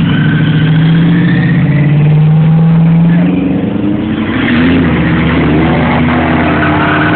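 Hot rod engines passing at low speed. First a steady deep engine note from a hot rod coupe with an exposed engine. About four seconds in, the engine of a flame-painted 1950s pickup takes over, with a brief rise in pitch.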